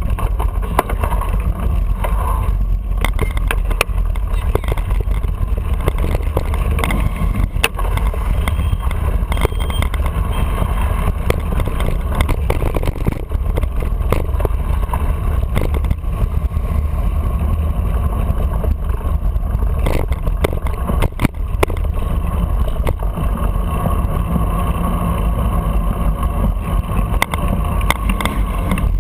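Steady low rumble of wind buffeting and road vibration picked up by a camera mounted on a moving bicycle, with scattered knocks and rattles from bumps in the pavement.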